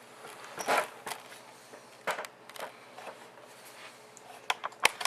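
Handling noises around an opened desktop PC case: scattered light knocks, clicks and rustles, with a few sharp clicks near the end.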